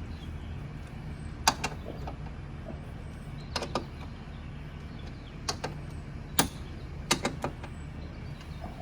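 Scattered sharp clicks and knocks, several in quick pairs, from hand tools working on the car's front strut, over a steady low hum.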